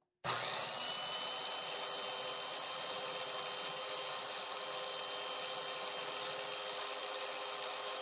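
DeWalt Hole Hawg right-angle drill starting about a quarter second in and running steadily at its 1200 RPM setting, spinning a small-block Chevy gear-type oil pump dry so that it pumps air. The whine rises briefly as the drill spins up, then holds steady.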